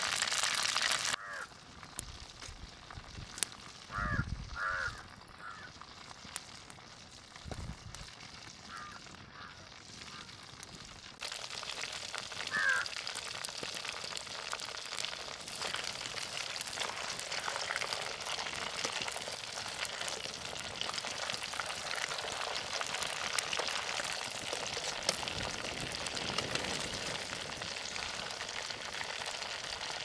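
Whole quail deep-frying in hot oil in an aluminium pan over a wood fire, giving a steady crackling sizzle. The sizzle falls much quieter about a second in and comes back at full strength after about ten seconds. During the quieter stretch a few short bird calls and two low thumps are heard.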